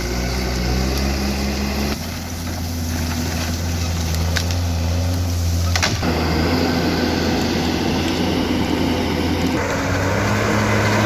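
Engine running steadily with a low, even hum, its pitch and tone changing abruptly about 2, 6 and 9.5 seconds in.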